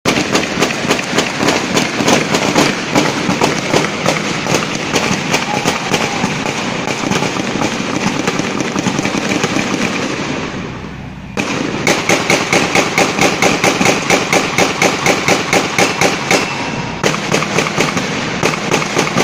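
Sustained rapid gunfire, several sharp shots a second in a running exchange. It breaks off briefly about ten seconds in, restarts abruptly, and pauses again near the end.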